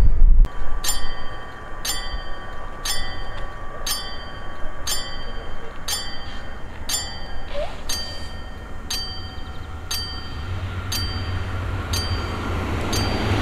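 A railway warning bell rings steadily about once a second, each strike ringing on briefly. A train's low rumble dies away in the first half second, and the noise of a train builds up again near the end.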